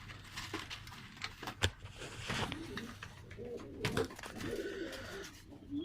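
Domestic pigeons cooing, low wavering calls repeated throughout, with a few sharp clicks and rustles among them.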